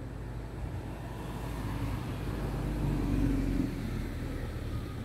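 A car passing on the street: its engine and tyre noise swell to a peak about three seconds in, then drop away, over a steady low hum.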